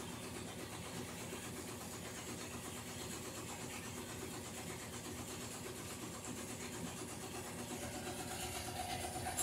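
Top-loading washing machine running: a steady mechanical hum with several steady tones, getting a little louder near the end as a higher tone comes in.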